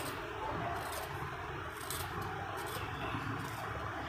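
Hand vegetable peeler with a serrated blade scraping the skin off a fresh garmar (coleus) root, in repeated short strokes.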